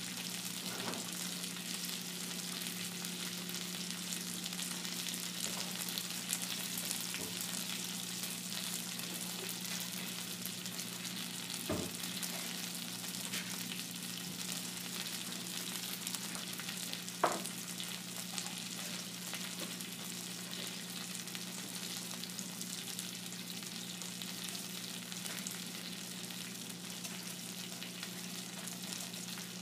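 Food sizzling in a hot frying pan: a steady crackling hiss over a low steady hum, with two short knocks about 12 and 17 seconds in, the second louder.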